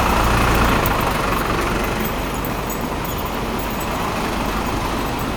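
Road traffic noise: a passing vehicle's rumble fades over the first couple of seconds, leaving a steady background traffic hum.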